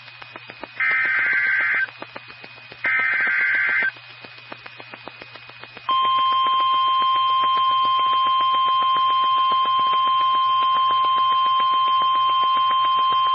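NOAA Weather Radio emergency alert received over a weather radio with crackling static. Two short bursts of the warbling SAME digital header tones come first. About six seconds in, the steady single-pitch weather radio warning alarm tone begins and holds.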